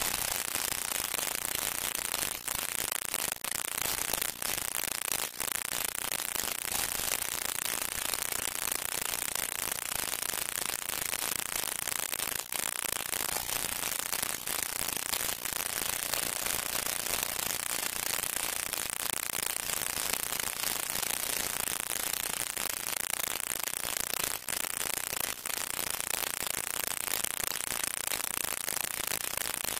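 Steady hiss and crackle of an old film soundtrack, with no speech or clear music, broken by brief dropouts every few seconds.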